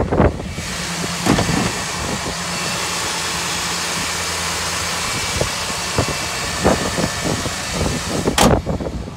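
A 1993 GMC pickup's 4.3-litre V6 idling steadily with the hood open, with a broad hiss from its fan and belt-driven accessories. A few short knocks and clunks come from handling the truck, the loudest near the end.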